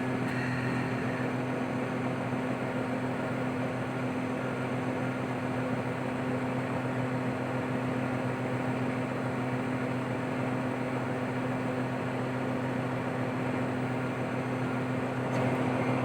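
Steady mechanical hum at a constant low pitch, with an even hiss over it.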